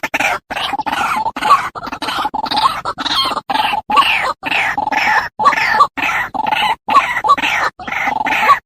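White-breasted waterhen calling over and over in harsh, grunting croaks, about two a second, with each call cut off by a brief dead silence.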